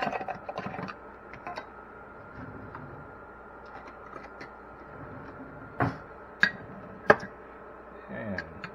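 Kitchen items being handled: a cluster of small clicks in the first second, then three sharp clicks or knocks a little over half a second apart, over a faint steady whine.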